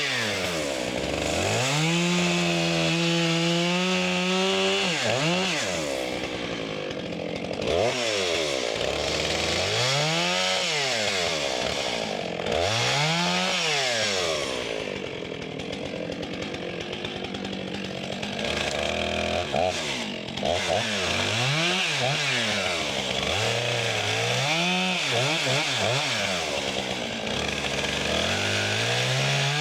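Stihl chainsaw running hard while bucking pine logs into rounds, its engine note held high for a few seconds, then falling and climbing back over and over as the throttle is let off and opened again between and through cuts.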